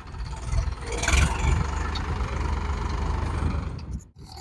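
Farmtrac 60 tractor's diesel engine running under load as it pulls a disc harrow through soil: a steady low drone that swells over the first second and drops out briefly near the end.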